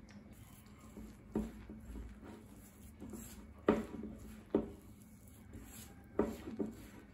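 Hand mixing wheat-flour gulab jamun dough in a bowl: quiet rubbing and squishing of the wet flour, with about five short, sharp knocks scattered through it.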